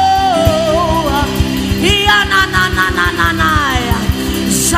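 Live gospel worship music: a woman sings long, falling melismatic lines without clear words over a band with a steady beat.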